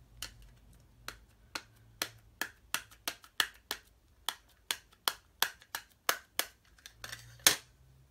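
Wood-mounted rubber stamp being tapped again and again onto an ink pad to ink it: a run of sharp, light taps, about two or three a second, with one louder knock near the end.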